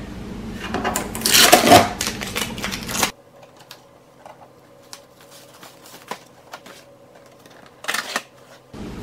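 Adhesive shipping tape being peeled off the plastic case of an inkjet printer: a rasping tear about a second in, followed by faint clicks of handling the plastic case and lid, and another short rasp near the end.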